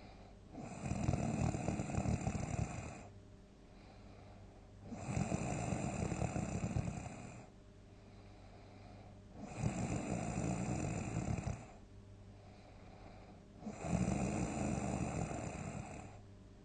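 A sleeping person snoring loudly: four long snores of about two seconds each, coming about every four and a half seconds, with quieter breathing between them.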